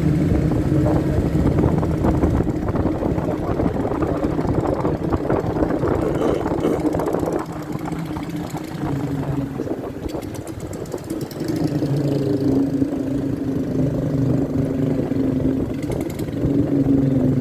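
Motorcycle engine running on the move, with wind and road noise. The engine eases off and goes quieter about seven seconds in, then picks up again about twelve seconds in.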